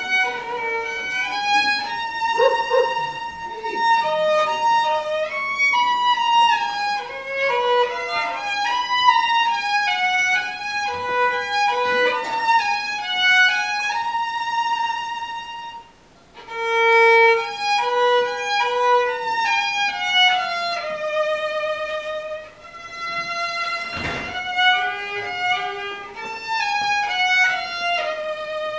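Solo violin playing an unaccompanied bowed melody, note by note, with a brief break about sixteen seconds in before the tune carries on.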